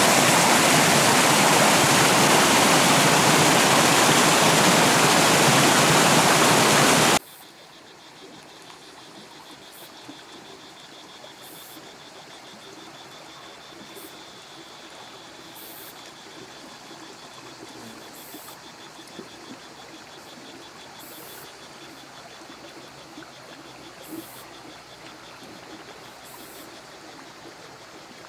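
Fast water rushing loudly down a narrow irrigation channel (an old acequia), cut off abruptly about seven seconds in. After that comes a much quieter outdoor ambience with a faint, steady high trill.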